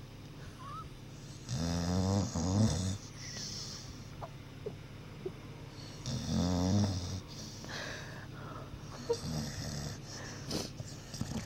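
A sleeping dog snoring: two loud snores about four seconds apart, each lasting about a second, with softer breaths between and after them.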